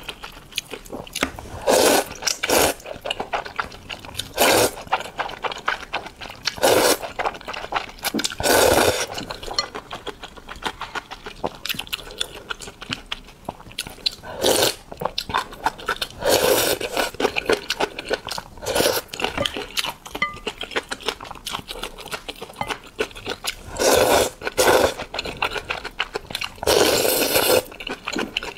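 A person eating Chinese noodles in spicy broth: about a dozen loud slurps of noodles and of broth sipped from a soup spoon, each about a second long, with wet chewing and mouth clicks between them.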